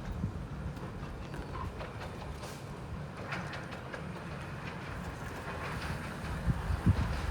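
Miniature railway train running along the track, with faint clicks from the wheels over the rails, under a steady low rumble of wind on the microphone. A louder low gust or rumble comes at the very end.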